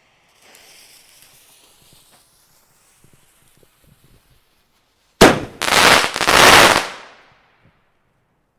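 Firework going off: a faint hiss, then a sharp bang about five seconds in, followed by a dense burst of crackling for about a second and a half that fades out.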